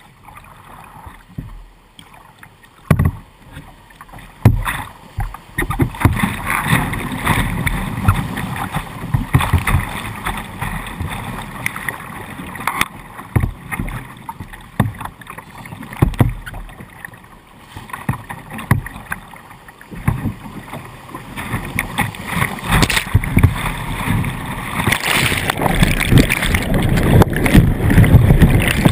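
Whitewater rapids rushing and splashing over a kayak's bow and the camera mounted on it. It starts fairly quiet with a couple of sharp knocks, then grows into a dense, choppy rush of slaps and splashes. Near the end the bow and camera go under the water, and the sound thickens into a loud, deep churning.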